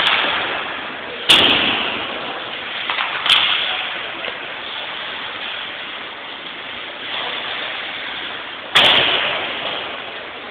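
Ice hockey play in an echoing rink: several sharp cracks of puck and sticks striking the boards and ice, the loudest about a second in and near the end, each ringing out in the arena's echo. A steady background of crowd voices and rink noise runs underneath.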